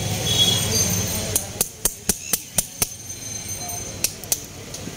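A hand hammer tapping a metal spike into a piece of coconut shell: a quick run of about seven sharp taps, some four a second, then two more near the end.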